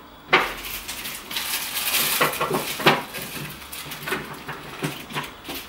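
Household clatter and rustling of kitchen items being handled while shopping is put away: a sharp knock just after the start, a stretch of rustling with clicks about two to three seconds in, then lighter scattered knocks.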